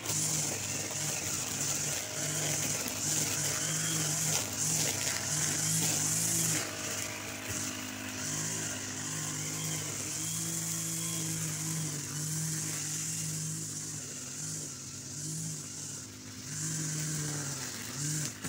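Petrol brush cutter fitted with nylon trimmer line running, its engine revving up and dropping back over and over as the throttle is worked while cutting grass.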